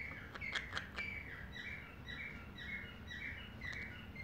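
Green-cheeked conure chirping: a steady run of short, falling chirps, about two a second, with a few sharp clicks in the first second.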